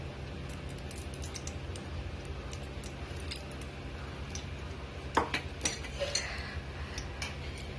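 Steel spoon clinking against the metal pressure cooker and ghee container as ghee is spooned in: a few light, scattered clinks, with a louder cluster about five to six seconds in.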